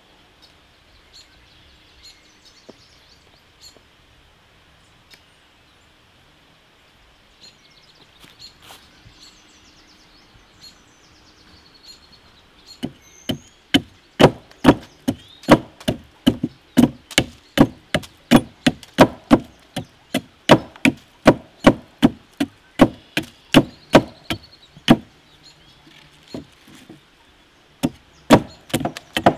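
Heavy Serbian chef's knife, a cleaver-style blade, chopping a wooden stick to a point on a log, in rapid sharp blows about two a second with a short pause near the end. The first twelve seconds before the chopping starts are quiet.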